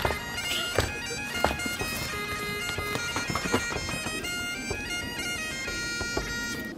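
Background music: a reedy melody of held notes stepping from pitch to pitch, with a few light percussive hits. It stops abruptly at the end.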